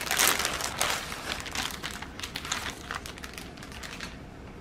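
Crinkly packaging of a craft kit rustling and crinkling as it is handled, busiest in the first second and dying away near the end.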